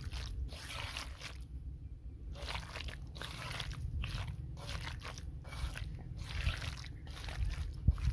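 Hand kneading raw boneless chicken pieces in a wet yogurt-and-spice marinade in a clay bowl: irregular wet squelches about two a second, with a brief pause about one and a half seconds in, over a low steady rumble.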